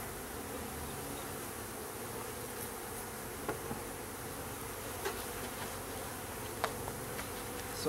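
Mass of newly installed honey bees buzzing steadily in the hive, fanning their wings to dry themselves off, with a few faint light ticks.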